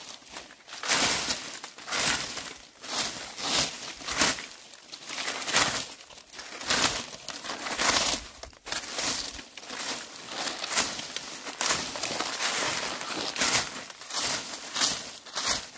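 Dry leaves being swept with a broom: repeated crackly rustling strokes, roughly one a second.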